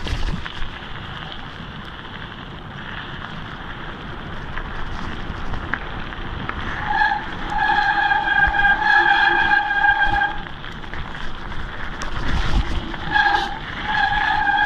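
Mountain bike rolling down a gravel track, tyres crunching with wind on the microphone. About halfway through, the disc brakes start squealing in a steady high tone for about three seconds, and they squeal again near the end.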